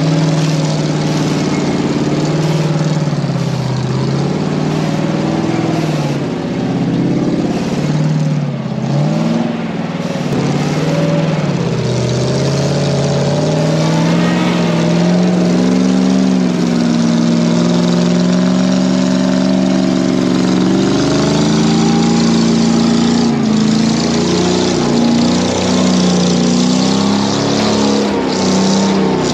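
GAZ-66 truck's engine running under load as the truck crawls over mud and dirt mounds. Its pitch rises and falls with the throttle, then climbs about halfway through and holds higher and steadier.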